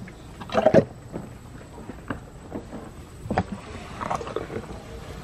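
African elephant chewing apples and sweet potatoes, irregular crunches as her big flat molars crush the fruit to pulp. The loudest crunch comes about half a second in.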